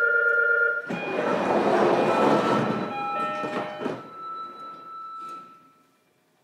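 Interior sound of a JR Kyushu 305 series electric train standing at a station: a loud two-second rush of hissing noise starts about a second in, with chime-like tones over it and after it. It fades, and the sound cuts off abruptly near the end.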